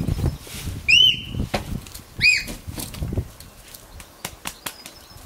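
Knocks, thumps and scuffs of children clambering down over a corrugated roof sheet, with a few sharp taps near the end. Two short, high, arching squeaky chirps sound about a second apart in the first half.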